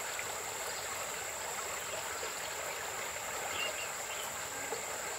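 Shallow stream water flowing: a steady, soft wash of water, with a thin, steady high-pitched tone over it.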